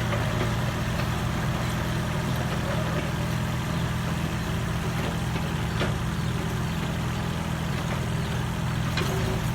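Mini excavator engine running steadily at an even speed, with a couple of faint clicks.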